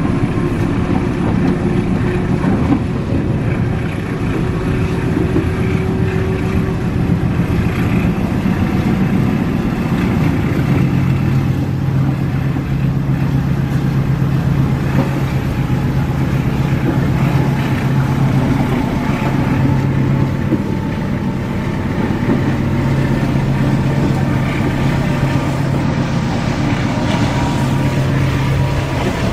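Diesel-hauled passenger train running, heard from inside the coach: a steady rumble with a low hum that grows stronger about a third of the way in.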